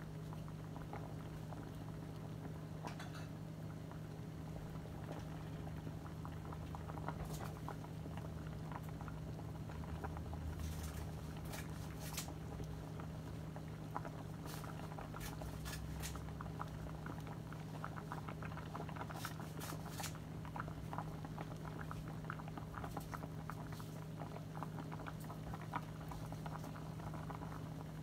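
Tofu soup at a rolling boil in a stainless steel stockpot: bubbles popping and crackling, denser in the second half, with a few sharper pops. A steady low hum runs underneath.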